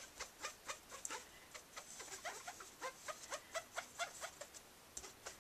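A stamping sponge rubbed over glossy white paper in quick short strokes while blending ink, making a faint run of small squeaky scuffs, several a second.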